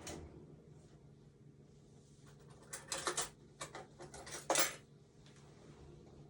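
A kitchen utensil scraping and clicking against a watermelon cucumber as its seeds are dug out. The sounds come as a cluster of quick scrapes about halfway through, a few light ticks, then one louder scrape.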